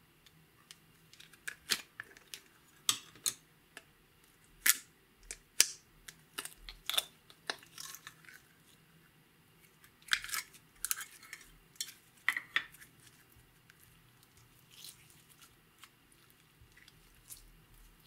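Slime being worked out of a thin clear plastic container with the fingers and stretched: an irregular run of sharp crackles, clicks and snaps. The sounds come in two dense clusters and thin out over the last few seconds.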